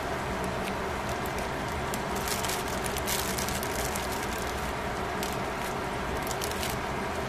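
Kitchen scissors snipping through a bunch of enoki mushroom stems, a run of short crisp clicks and crunches, heaviest about two to three seconds in and again near the end, over a steady hiss.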